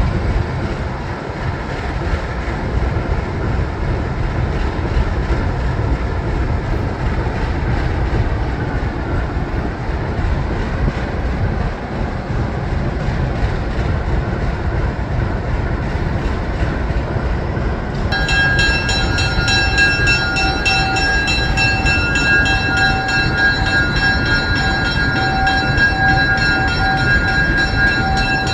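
Diesel engines of a 1955 ALCO FPA-4 and a 1946 ALCO S1 locomotive idling while warming up, a steady low rumble. About two-thirds of the way in, a steady high whine made of several held tones joins the rumble and carries on to the end.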